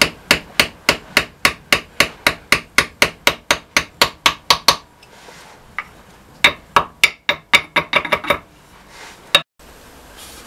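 Quick, even hammer taps on metal, about three to four a second, in two runs with a short pause between them. They are the sound of bending up the tabs of a lock washer to lock the bolts that hold a flywheel to a diesel's crankshaft flange.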